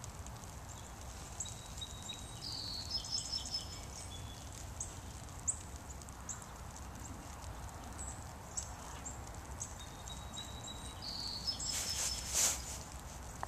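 Outdoor ambience: a steady low rumble with scattered light ticks, two short spells of faint high-pitched chirping, and a louder scratchy rustle near the end.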